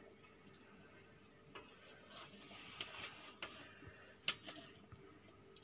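Faint, scattered clicks and light taps of hands placing green capsicum pieces onto a raw pizza on a metal pan, over a faint steady hum; the sharpest click comes about four seconds in.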